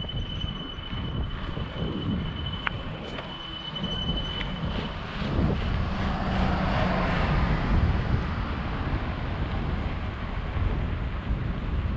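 Wind rumble on the microphone and tyre noise from a bicycle riding a paved path, with a bus passing on the road alongside: a rush that swells about five seconds in and eases off after a few seconds. A thin high whine runs through the first few seconds and then stops.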